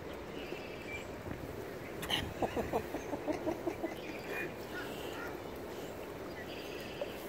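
A duck quacking: a quick run of about seven short quacks about two seconds in. Faint small-bird chirps sound over steady outdoor background noise.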